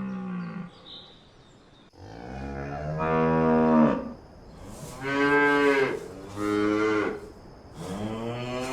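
Cow mooing: the end of one moo at the start, a long moo about two seconds in, then three shorter moos in quick succession.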